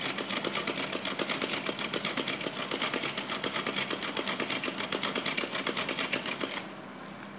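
Usha black straight-stitch sewing machine running, a fast even clatter of stitches as it sews through a woven plastic sack; it stops near the end.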